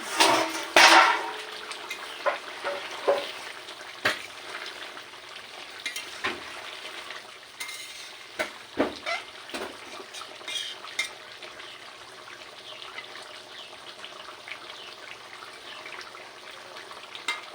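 Chicken curry simmering with a steady sizzle in an uncovered pot. A loud clatter of the pot lid comes right at the start, then a spoon stirs the curry, knocking and scraping against the pot every second or two.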